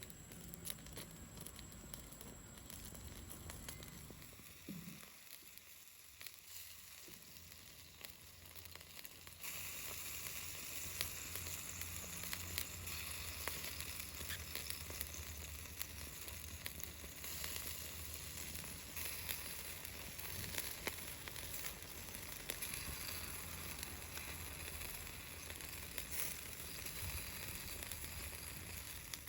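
Chicken wings sizzling on a grill over a wood fire, fat spitting in small crackling pops. The sizzle gets louder and brighter about ten seconds in.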